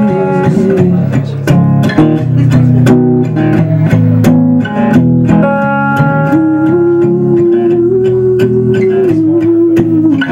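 Acoustic guitar picked by hand: a steady run of plucked notes over a low bass line.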